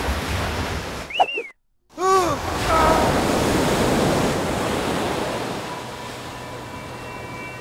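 Film sound effect of a great mass of water rushing and churning. A brief silent cut comes about one and a half seconds in, and a short wailing tone rises and falls just after it.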